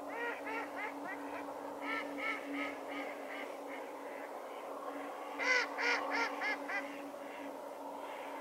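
A flock of mallards calling on a pond: three runs of four or five loud quacks, the loudest about five and a half seconds in, over a constant chatter from many more ducks on the water.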